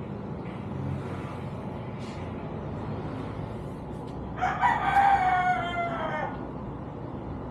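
A rooster crowing once: a single long call of just under two seconds that drops in pitch at its end, over steady low background noise.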